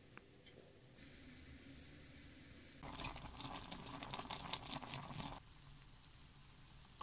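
Potato chunks simmering in liquid in a frying pan on a gas burner: a steady hiss, then a couple of seconds of crackling and popping as the liquid bubbles and spits, settling to a quieter low simmer near the end.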